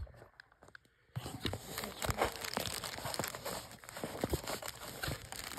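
Paper wrapping crinkling and rustling as it is handled and unwrapped by hand, starting about a second in.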